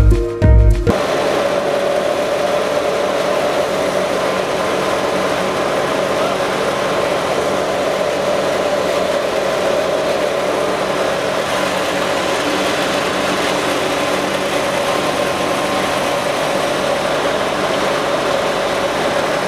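Background music for about the first second, then a wheat thresher belt-driven by a FIAT tractor running steadily while threshing: an even mechanical drone with a constant hum.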